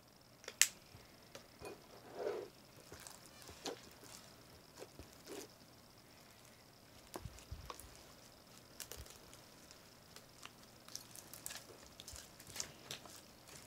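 Hands working a sticky glycerin-dosed slime: faint scattered squelches and small sticky clicks as it is pulled and kneaded, with one sharp click about half a second in.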